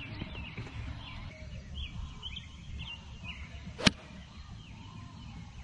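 Golf club striking a ball off the tee: one sharp crack about two-thirds of the way through, with birds chirping in the background.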